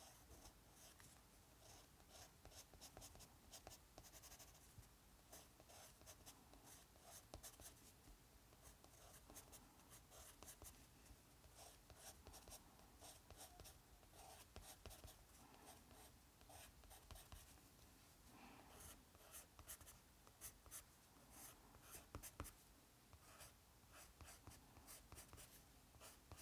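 Watercolour pencil scratching faintly on journal paper in quick, short back-and-forth colouring strokes.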